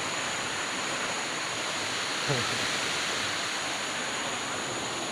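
Waterfall rushing steadily. About two seconds in, a short sound falls in pitch over it.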